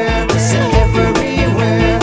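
Music with a steady beat: drums, a bass line and pitched instruments playing.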